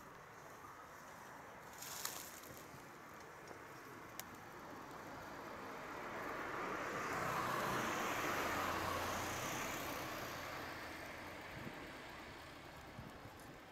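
A vehicle passing by unseen, its noise swelling to a peak about eight seconds in and then fading away. A short click comes about two seconds in.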